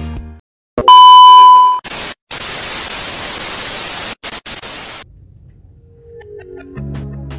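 A loud electronic beep lasting about a second, then about three seconds of steady hiss broken by a few short gaps: air escaping from a tyre valve stem as a TPMS valve-cap sensor is screwed on.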